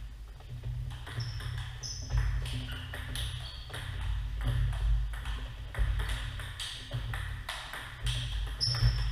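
Table tennis ball clicking and pinging off paddles and table in a rally during the first few seconds, a lull, then another rally starting near the end. A steady low hum runs underneath.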